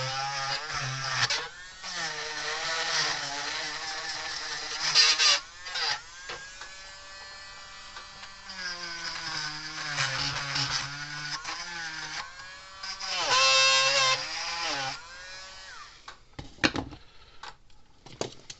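Small cordless rotary tool spinning against a corroded terminal tab, cleaning the tarnish off it; its motor whine dips and rises in pitch as it is pressed on and eased off, with two short pauses. It stops near the end, followed by a few light clicks as it is set down.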